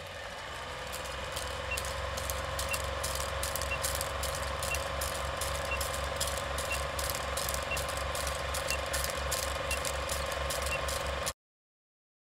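Film projector running with a steady clicking rattle and a pulsing low flutter, and a short beep once a second counting down the leader. It cuts off suddenly about eleven seconds in.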